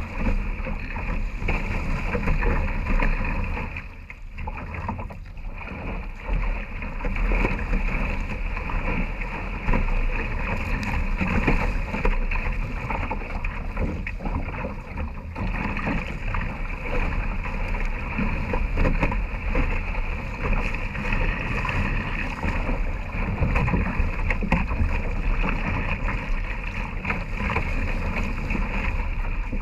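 Water rushing and splashing along the hull of a one-person outrigger canoe as it is paddled through choppy open sea, with wind buffeting the microphone. The sound is a steady, muffled rush with a low rumble.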